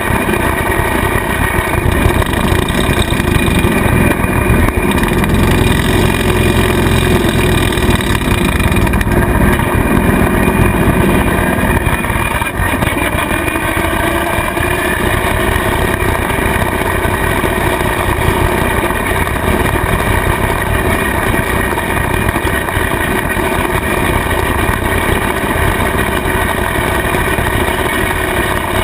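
Kubota tractor's diesel engine running steadily under load, driving a rotary cutter (bush hog) through long grass. The engine note shifts slightly about twelve seconds in.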